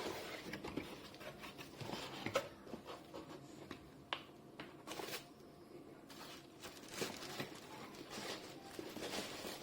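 Irregular clicks, taps and rustling of objects being handled in a small room, with sharper clicks about two, four and five seconds in.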